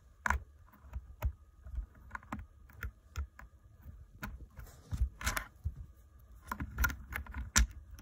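Irregular small clicks and taps of a radio's antenna accessory parts being handled and turned over, with a few louder knocks about five seconds in and again near the end.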